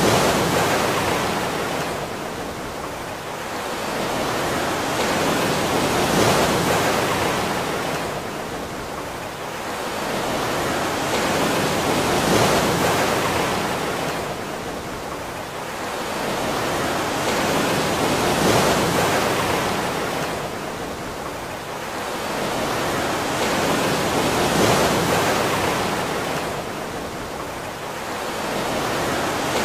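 Ocean surf: a steady rush of water noise that swells and fades about every six seconds, like waves washing in and drawing back.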